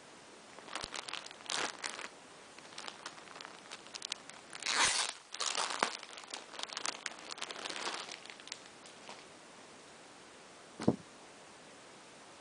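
Plastic packaging crinkling and tearing in irregular bursts as a parcel is handled and opened, loudest about midway. A single sharp knock near the end.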